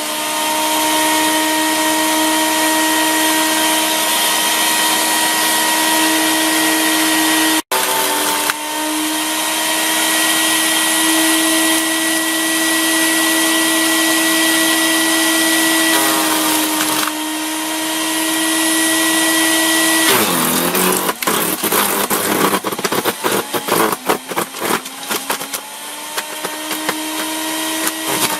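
Sun Joe CJ602E 15-amp electric chipper shredder running with a steady high motor whine. About two-thirds of the way in, the motor slows under load as a branch is fed in, and the wood is chipped with rapid cracking and snapping. The motor then speeds back up near the end.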